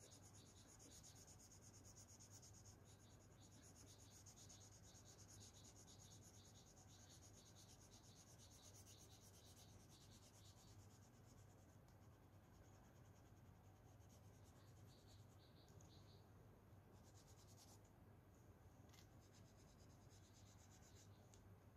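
Faint scratchy strokes of colouring on paper, rubbed back and forth about two a second, thinning out after about ten seconds, over a low steady hum.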